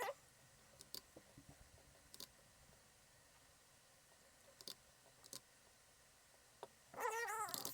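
Scattered computer mouse clicks at a low level, then a short wavering pitched squeak near the end, which is the loudest sound.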